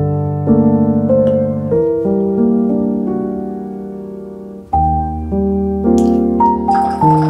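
Background piano music: slow, sustained chords that fade and change every second or so, with a faint hiss near the end.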